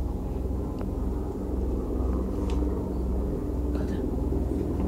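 Steady low rumble with a hum, with a few faint clicks.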